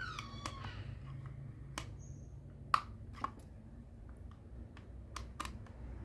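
Sharp separate clicks and taps of a flat-blade screwdriver working screws into the plastic hose-reel mount of an electric pressure washer, with a short squeal falling in pitch at the start. A low steady hum lies underneath.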